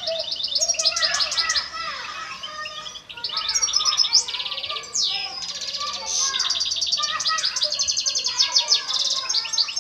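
A male European goldfinch in breeding condition sings a long, twittering song of fast trills and rapid repeated notes, mixed with quick rising and falling sweeps, broken only by brief pauses about three and five seconds in.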